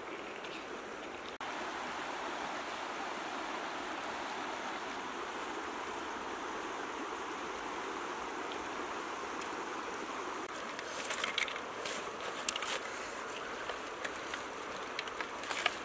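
Shallow river flowing over stones, a steady rush of water. In the last third, a scatter of short sharp clicks and rustles sits on top of it.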